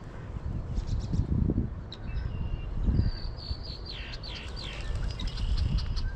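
Songbirds chirping, with a run of quick, repeated descending notes from about three to six seconds in. Under the birds there is a low rumbling noise that swells loudest about one and a half and three seconds in.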